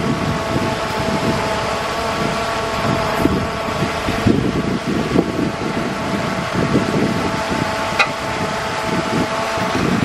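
Heavy earthmoving machine's diesel engine running steadily under work, with a steady whine over an uneven low rumble. A single sharp click about eight seconds in.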